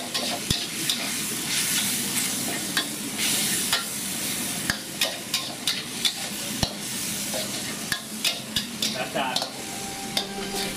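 Pork, chillies and holy basil sizzling steadily in a hot wok as they are stir-fried. The spatula scrapes and clacks against the wok many times at irregular moments.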